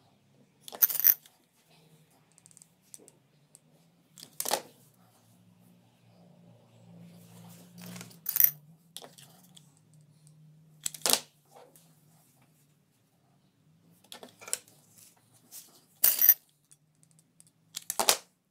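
Crystal beads clinking against a glass bowl and a mirror as they are picked up and set one by one around the mirror's rim: about seven sharp clinks, a few seconds apart.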